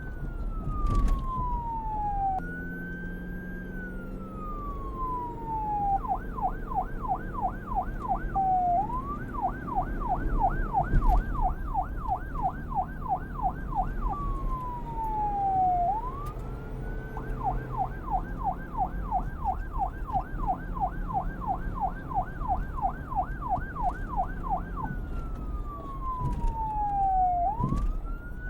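Police car siren switching back and forth between a slow wail that rises and falls and a fast yelp of about four sweeps a second, over a low rumble.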